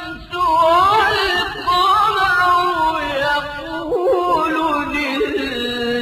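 A single voice chanting Quran recitation in a slow, melodic tajweed style, drawing each syllable out into long held notes that bend in pitch, with a quick wavering ornament about four seconds in.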